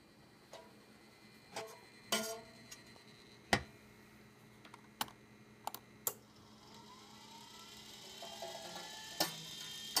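Electronic HVAC duct damper's actuator mechanism giving scattered clicks and knocks. Then, from about seven seconds in, a whir rising in pitch, cut by a sharp click near the end.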